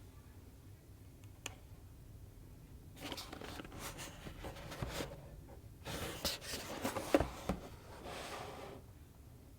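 Action-figure packaging being handled and opened by hand: a single click, then from about three seconds in several seconds of irregular rustling and scraping with a few sharp clicks.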